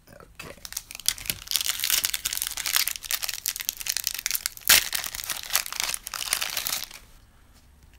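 A Panini Excalibur trading-card pack's wrapper being torn open and crinkled by hand: a dense run of crackling with one sharp crack a little past halfway. It stops about a second before the end.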